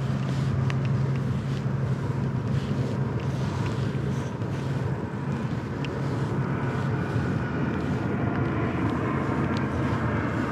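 A steady low hum under a rushing noise, with a few faint ticks.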